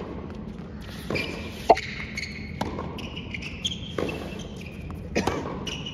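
Tennis rally on a hard court: a series of sharp pops as the ball is struck by the rackets and bounces on the court, one every second or so, the loudest about two seconds in.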